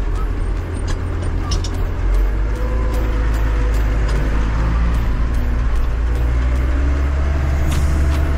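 Deutz-Fahr AgroStar 6.61 tractor's diesel engine running steadily as the tractor drives, heard from inside the cab, its pitch drifting up and down a little from about halfway through.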